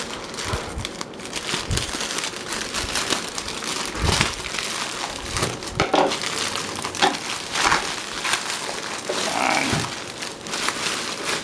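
Shipping packaging being handled, crinkling and rustling continuously, with many small crackles.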